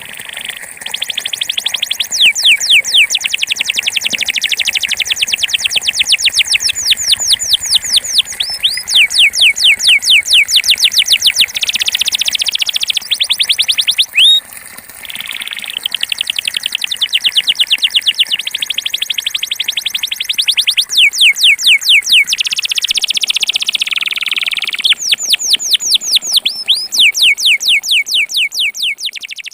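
Belgian canary singing a long song of trills: rapid runs of repeated falling notes, bell-like in the 'campainha' style, alternating with buzzing rolls, with a short break about fourteen seconds in.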